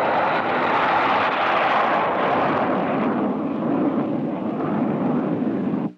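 Jet engine noise of a Convair B-58 Hustler's four General Electric J79 turbojets as the bomber rolls along the runway: a loud, steady rushing that cuts off abruptly near the end.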